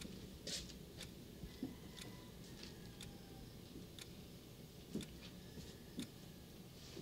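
Faint regular ticking, about once a second.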